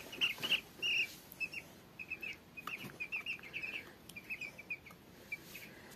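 Two-week-old broiler chicks peeping: a stream of short, high, falling cheeps in quick succession, with a few faint knocks among them.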